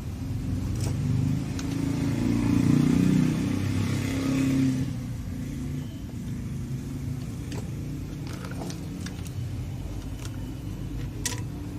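Polytron active speaker giving a low hum and buzz as its input is touched by a finger. This is a touch test of an amplifier with a weak, hoarse output, traced to a shorted TIP41 output transistor. The hum is louder and rougher for the first few seconds, then settles lower and steady, with a faint click near the end.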